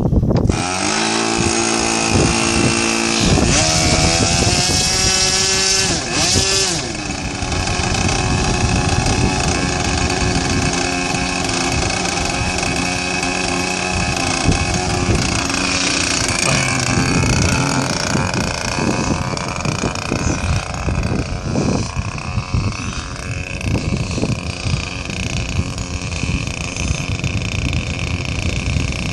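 Small nitro glow-plug engine of a radio-control model airplane running, revved up a few seconds in and then running on with its pitch rising and falling.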